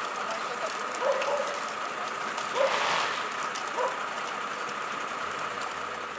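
Fire engine running at the scene: a steady hiss with a constant high whine, and a few faint distant calls over it.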